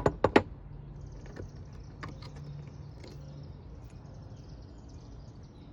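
New spark plugs and a gapping tool being handled: three sharp clicks in quick succession, then a few faint taps.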